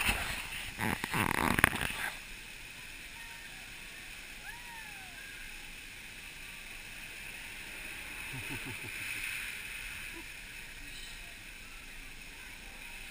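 Water-slide water splashing hard for the first two seconds, then a steady rush of running water.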